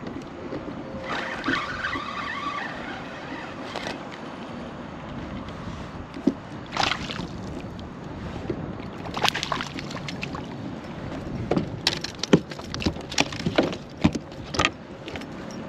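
Water lapping and sloshing against a kayak hull, with a short buzz between about one and four seconds in. In the second half come a string of sharp clicks and knocks from fishing gear being handled on the kayak, bunched close together near the end.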